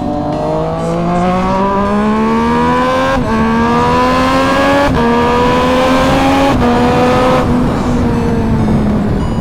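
Sport motorcycle engine accelerating hard through the gears: revs climb, with three quick upshifts, then the throttle closes and the revs fall slowly near the end.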